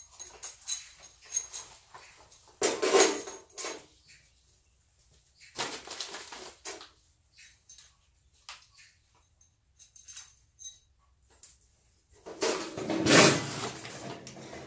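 Intermittent scraping, rustling and light knocks of hand work with tools and building materials on a floor. The loudest is a longer scrape and rattle near the end as a large flat board is picked up and handled.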